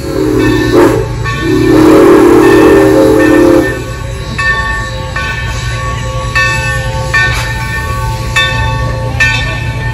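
Steam locomotive whistle: a short blast, then a longer one of about two seconds with a hiss of steam. It is followed by a bell ringing in slow, uneven strokes.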